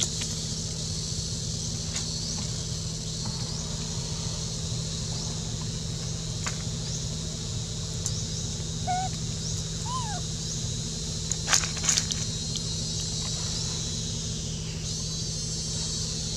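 Steady high-pitched insect buzzing fills the air, with a low steady hum beneath. A few faint short chirps come around the middle, and two sharp clicks about twelve seconds in are the loudest sounds.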